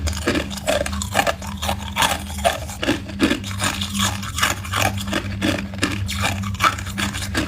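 Hard ice being chewed and crunched in the mouth close to the microphone: a rapid run of sharp crunches, about three a second, over a steady low hum.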